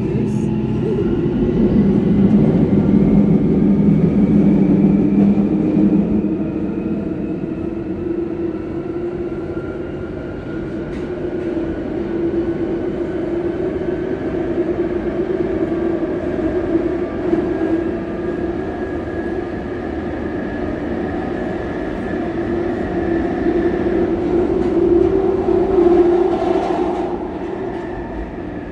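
London Underground 1996 Stock train running in a tunnel, heard from inside the car: the traction motor whine rises steadily in pitch as the train picks up speed, then holds level over a continuous wheel and rail rumble. There are a few brief clicks along the way, and the sound eases off near the end.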